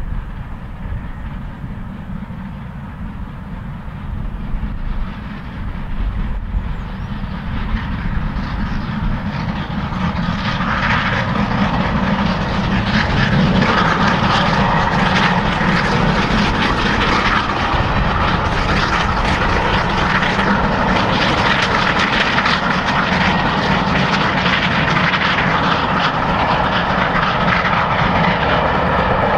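A steam locomotive and its train approaching at speed and running past, growing louder over the first ten seconds or so and then staying loud.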